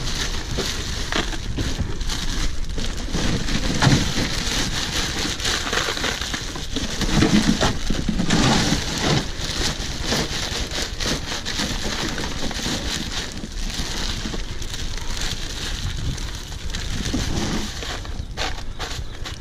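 Plastic ice bag crinkling while crushed ice crunches and rattles as it is shaken out into an insulated fish bag and packed down by hand.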